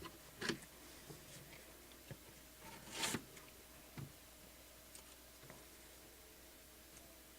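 Quiet room tone with a few faint, scattered clicks and one brief rustle about three seconds in.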